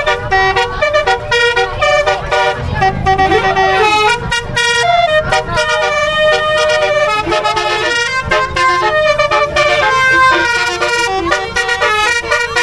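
Telolet bus horns playing fast multi-note tunes, several tunes sounding over one another, with a low engine rumble underneath.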